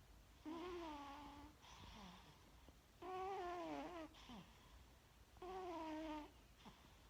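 A sleeping cat snoring, each breath carrying a strange pitched, wavering squeak: three long ones of about a second each, roughly every two and a half seconds, with a fainter one after the first.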